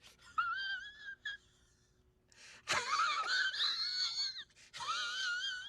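A person's high-pitched, wavering wheeze, heard in three stretches: a short one near the start, a longer one in the middle and another near the end.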